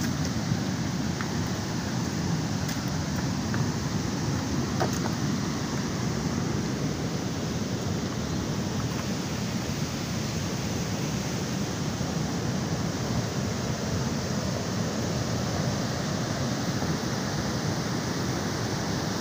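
Flash flood: muddy floodwater and debris rushing past in a steady, loud, deep rush, with a couple of faint knocks about three and five seconds in.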